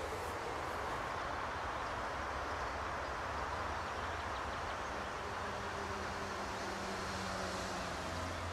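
Distant regional train approaching: a steady low rumble with hiss, and a faint engine hum coming in about halfway through.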